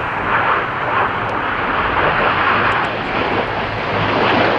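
BAE Hawk T1 jet engine noise as the Red Arrows' synchro jets fly low past: a loud, steady turbofan roar.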